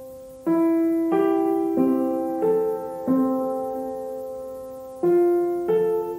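Background music: slow piano playing single notes and chords that each ring and fade, with one chord left to ring for about two seconds midway.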